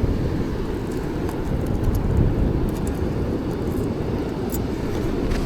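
Wind buffeting the microphone over the steady rumble of ocean surf, with a few faint high clicks scattered through it.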